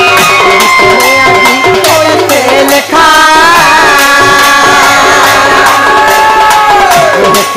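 Folk devotional music: a two-headed barrel hand drum keeps a steady beat under a melody of long held, wavering notes.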